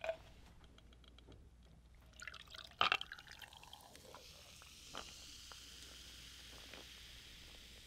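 Cola poured from a plastic bottle over ice into a glass mug, with a few faint clinks and splashes about two to three seconds in, then a steady faint fizzing hiss as the carbonation settles.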